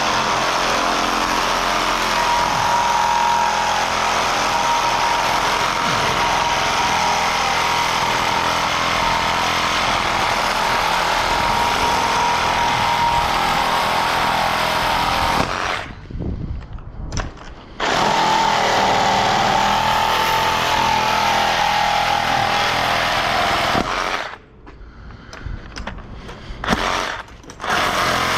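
Power saw cutting through scrap metal, running steadily with a high whine. It stops briefly about halfway through, then stops again for a few seconds near the end.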